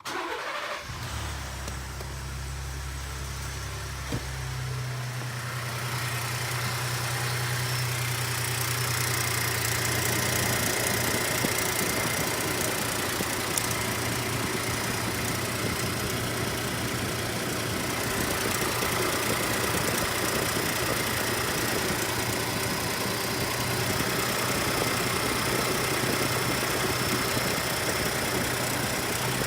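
2018 Ford Expedition's twin-turbo V6 idling from a cold start, with the cold-start tick the owner is recording. The engine note changes about four to five seconds in, then settles into a steady idle.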